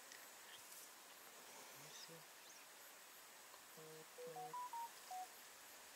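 Near silence broken by faint, short electronic beeps at a few set pitches: a couple about two seconds in, then a quick stepping run of about six near the end.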